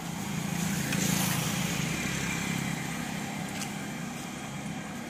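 A motorcycle passing by: its engine hum swells to a peak about a second in, then slowly fades away.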